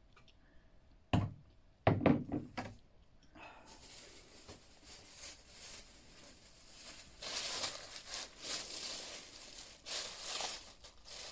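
A couple of thumps as a glass beer bottle is set down on a tiled counter, then a thin plastic carrier bag rustling and crinkling as it is handled, louder in the last few seconds.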